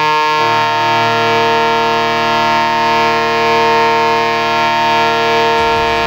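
Ice hockey goal horn sounding one long, steady, unbroken blast; low music notes come in under it just before it ends.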